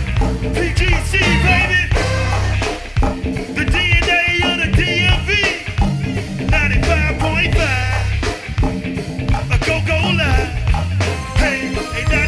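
A live band plays upbeat music, with a drum kit and bass keeping a steady beat under a wavering high melody line.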